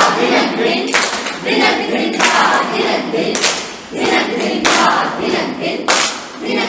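A group of young voices chanting in unison, punctuated by sharp group claps about every second and a quarter.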